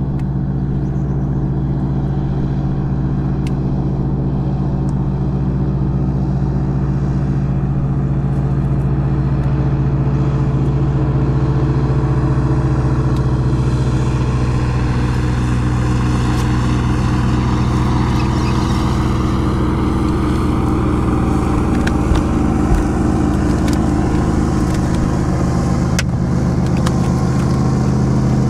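Bass boat's outboard motor running steadily at speed, its drone holding a nearly constant pitch, with a few light knocks near the end.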